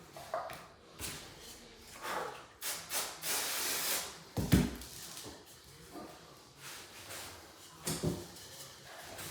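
Irregular knocks, scrapes and rustles from handling and fitting MDF skirting boards, with a short scraping stretch a few seconds in and one loud thump just after it.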